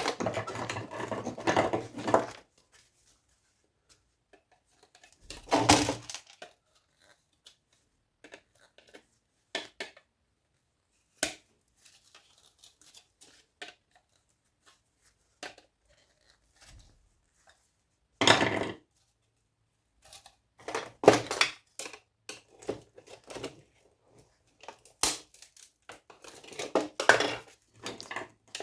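Clattering, scraping and clicking of metal and plastic parts of old electronic equipment being pried apart and handled as a circuit board is worked free, coming in irregular bursts with quiet gaps, busiest near the end.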